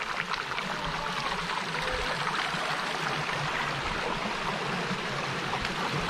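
Shallow creek water flowing steadily over flat bedrock ledges, a continuous rushing trickle.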